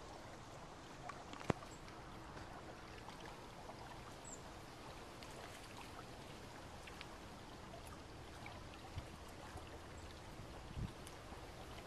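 Faint, steady water lapping and trickling at the canal's edge, with one sharp click about a second and a half in and a couple of soft knocks near the end.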